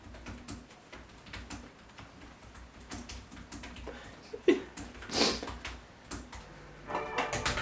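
Small clicks and fabric rustling as hands fiddle with a shirt collar, with a short breathy burst about five seconds in. Music begins near the end.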